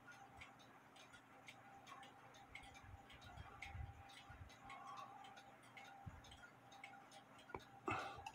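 Faint, steady ticking of a mechanical clock, with soft handling noises as wire pins are pressed into the holes of a brass clock gear's lantern pinion.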